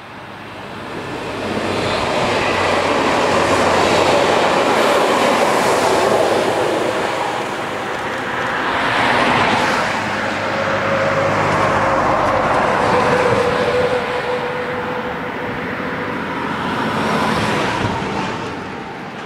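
Diesel locomotive passing with its train, the engine running loudly along with the noise of the wheels on the rails; the sound builds over the first couple of seconds.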